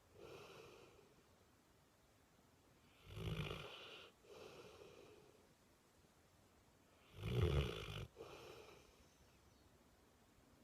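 Snoring: two loud, rattling snores about four seconds apart, each followed by a softer breath, with quiet between.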